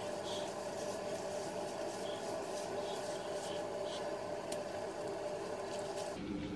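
Soft rubbing and squishing of plastic-gloved hands working hair dye through wet hair, over a steady hum that drops to a lower tone near the end.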